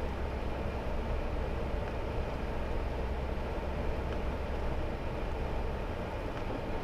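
Hummer H3 driving steadily at road speed: a constant low rumble of engine and tyres with wind noise, with no change in speed.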